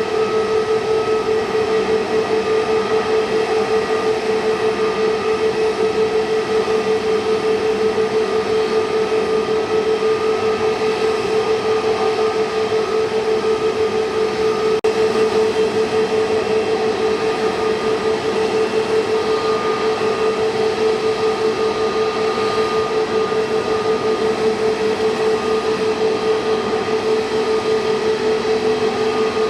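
Airbus A320 airliner's jet engines running at steady power: a constant hum with a steady whine that hardly changes in pitch or loudness.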